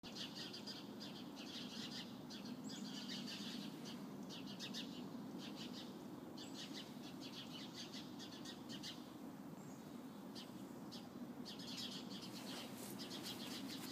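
Small songbirds singing in short bursts of rapid high-pitched trilled notes, repeated every second or two, over a steady low hum.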